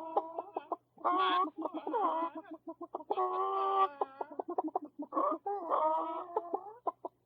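Chickens clucking and squawking: several drawn-out squawks broken up by runs of short, quick clucks.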